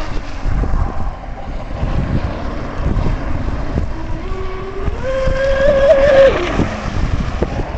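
Brushless electric motor of a GFreak Bud Cat RC racing catamaran, running on a 6S lipo, whining at speed. The whine rises in pitch about four seconds in, holds high, then drops off near the end, with wind rumbling on the microphone.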